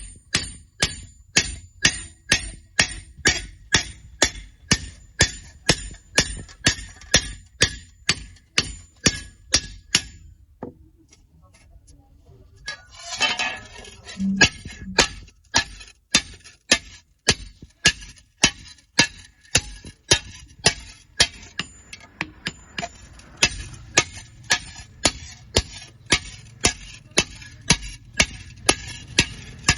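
A hammer striking iron in a steady rhythm of about two ringing blows a second. The blows pause for a couple of seconds about ten seconds in, with a brief clatter, then resume at the same pace.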